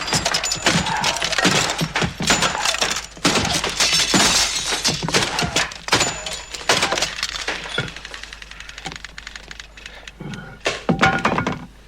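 A run of crashing and glass-shattering sound effects, many sharp impacts close together. It thins out about eight seconds in and flares up once more near the end.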